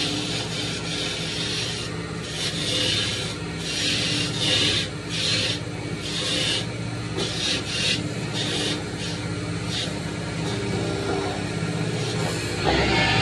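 Wood copy lathe's motor running steadily, with repeated harsh rasping and rubbing sounds. Near the end a louder, deeper running sound starts up as the lathe gets going on a new square blank.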